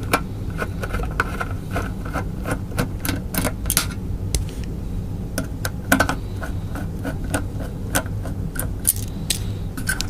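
Irregular metallic clicks and ticks of a screwdriver backing the side mounting screws out of a hard drive in a metal chassis, over a steady low hum.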